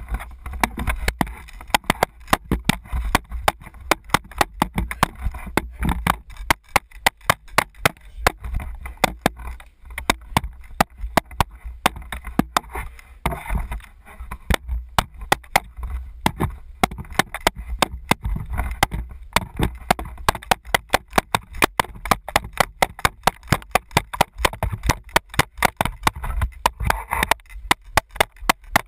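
Hockey stick blade tapping a ball back and forth in quick stickhandling: an uneven run of sharp clicks, several a second, over a low rumble of handling noise from the camera mounted on the stick.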